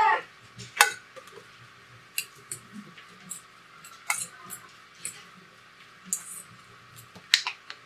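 Metal utensils clinking against a stainless steel mixing bowl as diced potato and cucumber are squeezed over with lemon and stirred together: about ten short, uneven clinks, the loudest about a second in.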